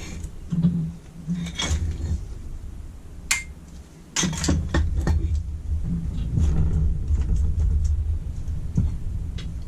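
Small metal carburettor parts being handled and set down during disassembly: scattered clinks and light knocks, one with a short metallic ring about a third of the way in and a cluster of them about halfway, over a low rumble.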